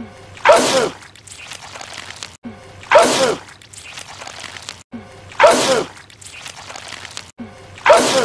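A man's wet sneeze, the same one repeated four times about every two and a half seconds: each a short intake, then a loud, sharp burst.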